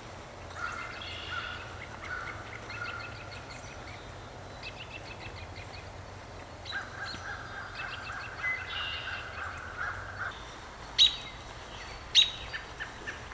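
Several wild birds calling and singing, with a long drawn-out call of about three seconds in the middle. Two short, sharp calls near the end are the loudest sounds.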